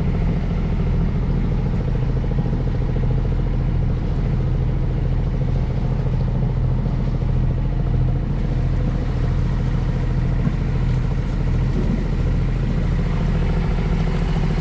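A sailboat's auxiliary engine running at a steady speed while motor-sailing, a constant low drone.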